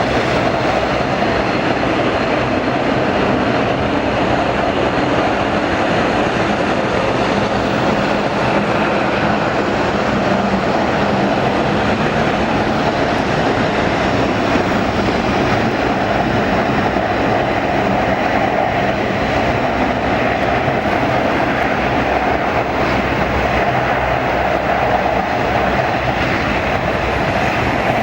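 Steady roar of a Boeing 777-300ER's jet engines, running at an even level throughout.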